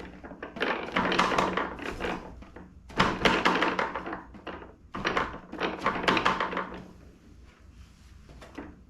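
RC bush plane on soft inflatable tundra tires being bounced on a tabletop: three bouts of dull thunks, each a second or two long, dying down near the end. The soft tires keep the landings much quieter than hard rubber tires.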